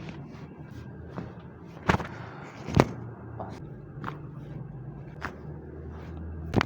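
Sharp cracks from chiropractic spine adjustments, about five clear pops roughly a second apart with smaller clicks between, over a low steady hum.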